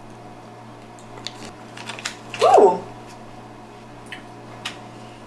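A few faint clicks from people eating a chocolate-covered toffee bar, with one short voice sound falling in pitch, like a murmured "mm", about two and a half seconds in, over a steady low hum.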